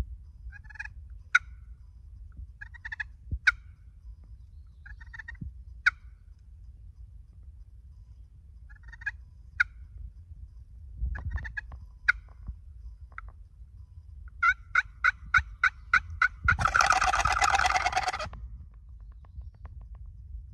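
Turkey calls: several short, spaced calls, then a quick run of about eight even yelping notes, answered about three-quarters through by a wild turkey gobbler's loud, close gobble lasting under two seconds.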